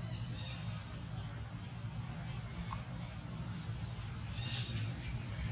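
Baby long-tailed macaque giving soft, brief high squeaks, four of them spread a second or more apart, with leaves rustling a little after four seconds in.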